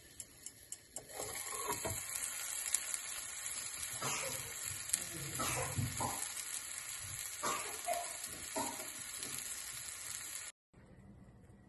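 Pork belly and vegetables sizzling and crackling in a Nagatani-en Casserole Mine earthenware pot over a gas flame, with occasional louder pops. A few faint, even ticks come first, and the sizzling starts about a second in and cuts off abruptly near the end.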